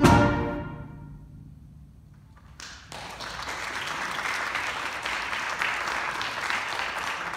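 A middle school concert band ends a piece on a loud final chord that rings out and fades over about a second and a half. After a short pause, the audience applauds steadily from about three seconds in.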